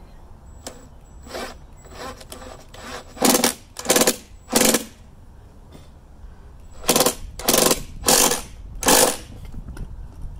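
Cordless drill driving a screw through the dethatcher's handle into its plastic housing, run in short trigger bursts: three about three seconds in, then four more a few seconds later.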